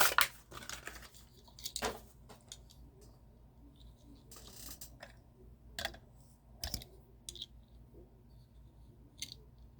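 Scattered clicks and taps from handling a packaged Hot Wheels die-cast car in its plastic blister and card, with a brief rustle of the packaging about four and a half seconds in.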